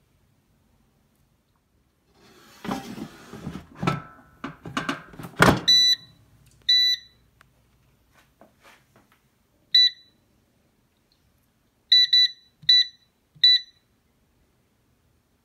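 Air fryer's touch control panel beeping at each button press as the cooking time is set: seven short high beeps, some in quick succession. Before the beeps, about two to six seconds in, clattering and knocks, the loudest a knock just before the first beep.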